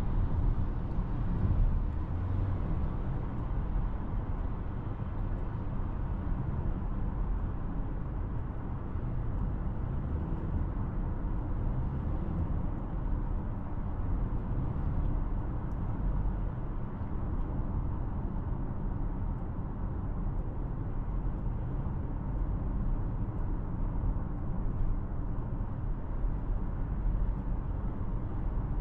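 2026 Toyota Corolla Cross driving, a steady low rumble of road and tyre noise with no sharp events.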